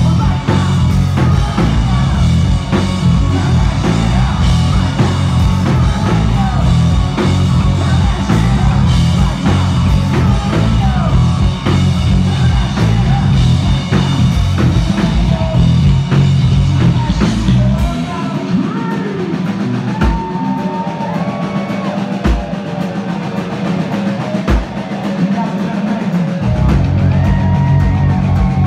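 Live rock band playing loudly, with a driving drum kit, bass and electric guitar. About two-thirds of the way through, the drums and bass drop out, leaving guitar notes that bend and slide in pitch over a few lone low hits, before the full band crashes back in near the end.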